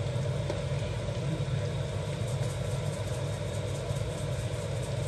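A steady low mechanical hum with a faint hiss above it, unchanging throughout.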